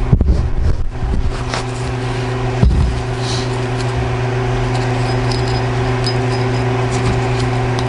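Small metal clicks and one sharp knock about two and a half seconds in as a C-clip is worked onto the splined end of an axle, over a steady low machine hum.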